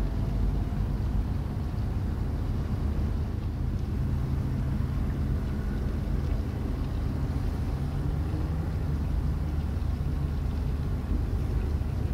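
The ro-ro ferry Barfleur's engines and machinery running with a low, steady drone.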